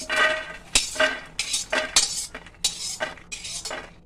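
Perforated steel skimmer scraping around a metal kadhai, scooping out fried makhana (fox nuts) and tipping them into a steel plate. It is a quick series of metal scrapes and clinks, about two a second.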